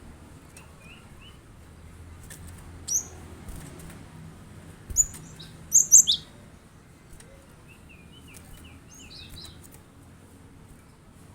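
Cinereous tit (gelatik batu) calling: short, sharp high chirps, loudest in a cluster about five to six seconds in, with runs of softer, lower twittering notes near the start and again later, over a faint low hum.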